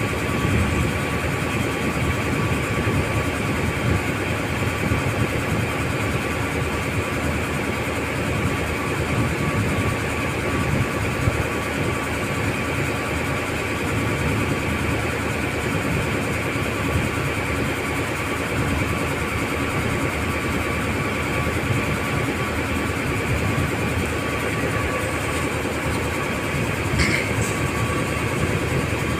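Steady drone of a heavy engine, a dense low rumble with a thin steady whine running through it. A brief high squeak comes near the end.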